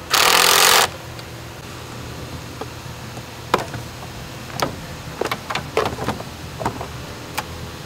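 A loud hissing burst of under a second from a power tool running down the battery hold-down bolt. Then a run of sharp plastic clicks and knocks as the plastic air filter housing is lowered and seated over the battery.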